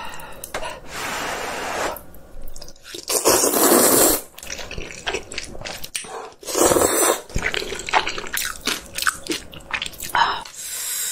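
A person slurping instant ramen noodles in several long, noisy slurps, with wet chewing in between.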